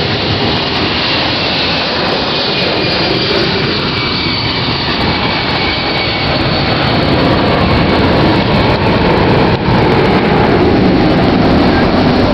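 Airplane engines running loud and steady as an aircraft flies past, with a faint whine that slowly falls in pitch. The noise grows a little louder in the second half.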